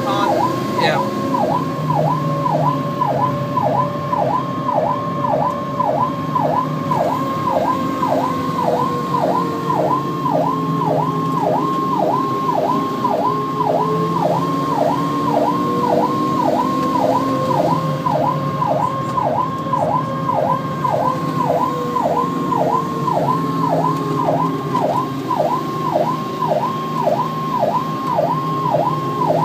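Emergency siren sweeping up and down quickly, about one and a half times a second, with a second, slower siren tone rising and falling beneath it. Engine and road noise run underneath, heard from inside a moving vehicle's cab.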